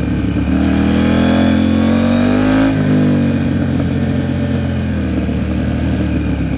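KTM 790 Duke's parallel-twin engine through an Arrow Pro Race titanium exhaust, riding under throttle. The pitch climbs slowly, drops sharply about two and a half seconds in, then climbs again.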